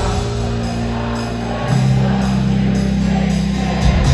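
Live band music in a large arena, recorded from the audience: held bass notes and chords, with a chord change about halfway through and the full band coming back in louder near the end.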